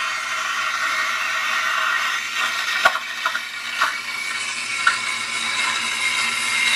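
Steam wand of a Starbucks Barista SIN006 espresso machine hissing steadily as it steams and froths cold milk, adding air and steam. A few short sharp clicks come about three to five seconds in.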